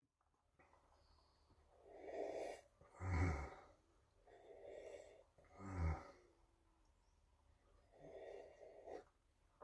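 A man sipping from a mug, each sip followed by a short voiced exhale, twice, with a third sip near the end.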